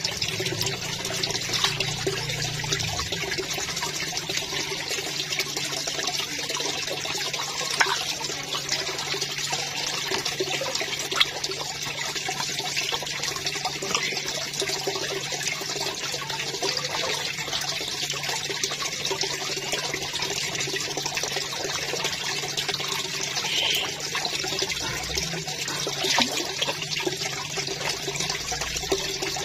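Steady rush of water in a koi pond, with a few short splashes as koi feed on floating pellets at the surface, over a faint steady low hum.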